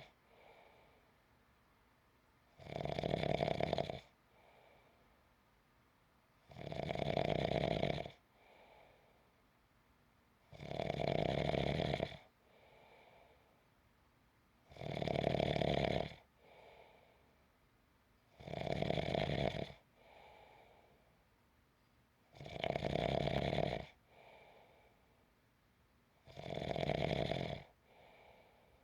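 A person snoring in a steady rhythm: a loud snore about every four seconds, seven in all, each followed by a fainter breath.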